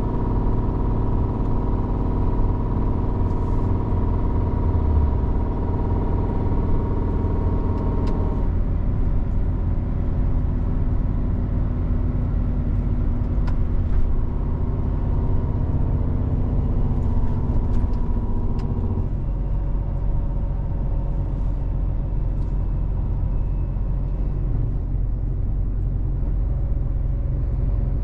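Scania truck's diesel engine running under way, heard inside the cab over a steady low road rumble. The engine note shifts about a third of the way in and again about two-thirds of the way through.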